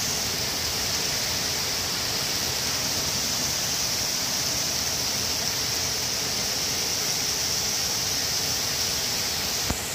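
Heavy rain falling in a steady, even hiss. A single sharp click near the end.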